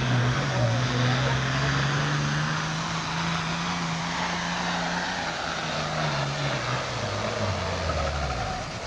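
Heavy super stock diesel pulling tractor under full load dragging a sled. The engine note holds steady for about five seconds, then falls steadily as the tractor slows near the end of its pull.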